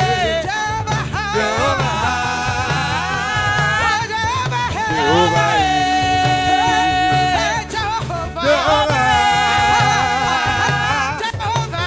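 Gospel worship singing: a voice holding long notes with vibrato over a steady band accompaniment with a rhythmic beat.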